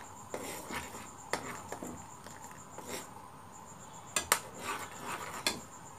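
Long metal spoon clinking and scraping against a metal saucepan while stirring milky tea: a handful of light, separate clinks spread irregularly through the stirring.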